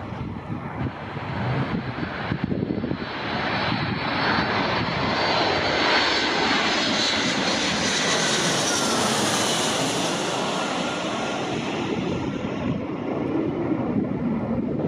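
Delta Boeing 757-300 jet airliner passing low overhead on its landing approach: the engine noise swells to a peak with a high whine, then eases off as the pitch drops.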